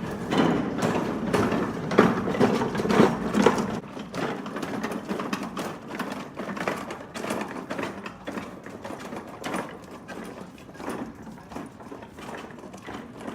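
Rapid, uneven mechanical clicking and rattling, loudest in the first few seconds and then fainter.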